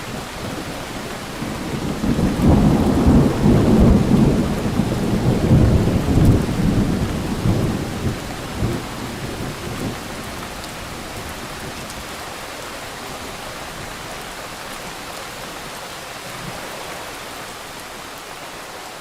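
Thunderstorm: steady heavy rain with a long roll of thunder that builds about two seconds in, rumbles for several seconds and fades away, leaving the rain alone.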